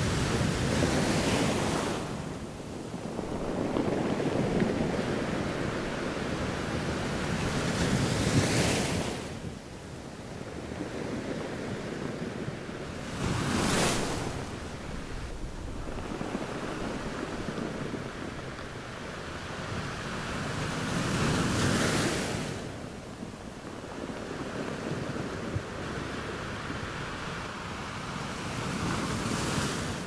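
Gentle sea waves breaking and washing up a sandy beach, the surf swelling and fading in surges every few seconds, with a brighter hiss of foam at the peaks about 8, 14 and 22 seconds in.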